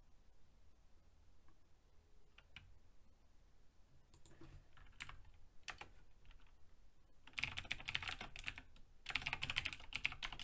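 Typing on a computer keyboard: a few scattered key presses, then two quick runs of fast typing in the last three seconds.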